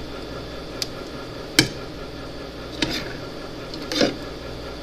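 A utensil clinking and tapping against a measuring cup while shampoo-and-salt slime is stirred: four separate sharp taps, the second the loudest, over a steady background hiss.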